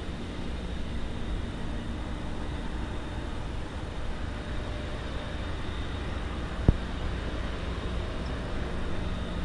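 A steady low engine-like hum with a faint constant drone, and a single short knock about two-thirds of the way through.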